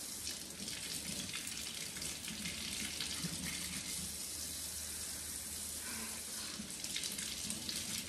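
Kitchen faucet running steadily into the sink, the stream splashing over apricots being rinsed by hand under it.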